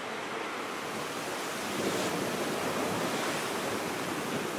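Ocean surf: waves breaking in a steady wash, swelling a little louder about two seconds in.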